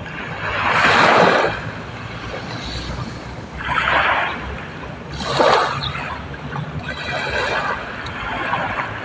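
Small waves washing in against the shore, four surges of splashing water that swell and fade, each lasting about a second.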